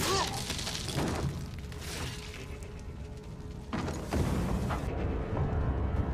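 TV battle-scene soundtrack: dramatic music under booms and crashing impacts, with a heavier run of them about four seconds in.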